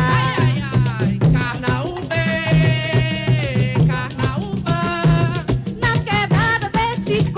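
Live coco de roda music: a voice singing over a steady, repeating percussion beat, holding one long note about two seconds in.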